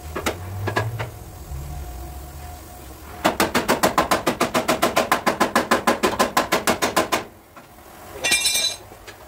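A few single knocks, then a fast, even run of hammer taps on car body metal, about nine a second for some four seconds, stopping suddenly. A short harsh hiss follows near the end.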